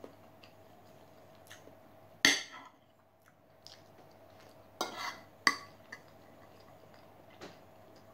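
Metal fork and spoon clinking and scraping against a dinner plate while eating: a sharp clink a little over two seconds in, a few more around five seconds, and a faint one near the end.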